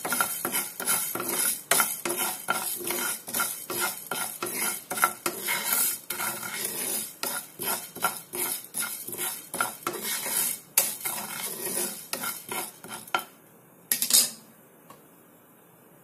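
Wooden spatula stirring fenugreek seeds around a dry frying pan, scraping and rattling the seeds over the pan about three strokes a second while they roast. The stirring stops near the end after one sharper knock.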